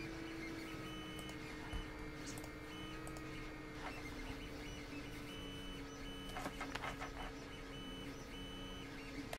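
Computer running under a GPU render load: a steady electrical hum and whine, with higher whine tones that switch on and off. A few mouse clicks are heard, several of them close together near the end.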